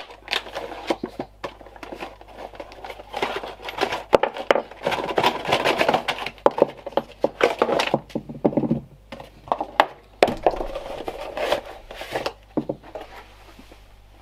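Packaging being opened and handled: plastic and cardboard crinkling and rustling, with many short clicks and knocks as polyurethane engine-mount bushes and other parts are taken out and set down on a workbench.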